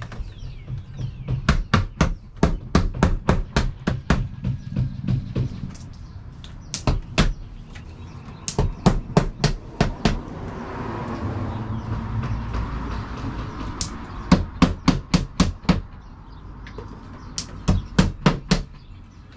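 Hammer driving nails into a wall during siding installation, in several runs of quick strikes at about three a second. A rushing noise swells and fades midway between the runs.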